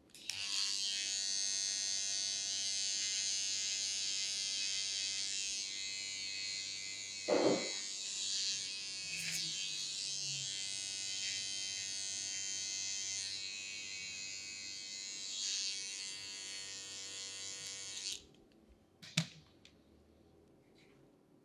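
Electric hair clippers buzzing steadily for about eighteen seconds, then switched off. A short knock partway through and a sharp click about a second after they stop.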